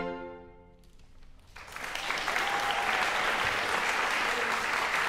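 A string quartet of two violins, viola and cello ends on a held final chord that dies away within about a second. After a short hush, audience applause starts about a second and a half in and keeps going.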